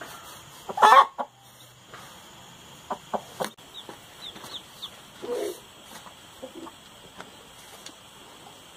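Chicken clucking, with one loud call about a second in and fainter calls later, mixed with a few short high chirps and light clicks.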